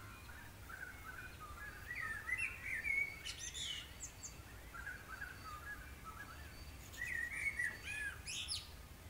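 Small birds singing, with quick chirped and warbled notes that come in two busier flurries, about two seconds in and again about seven seconds in.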